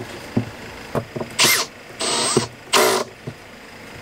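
Cordless drill-driver driving screws into a plywood panel in three short bursts, its motor whine spinning up and down, with a few light knocks from handling the filter bracket between them.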